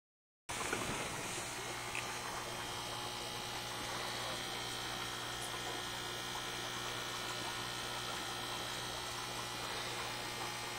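Steady electric hum of the aquarium's pump motor over a faint wash of moving water, after a brief dropout at the very start.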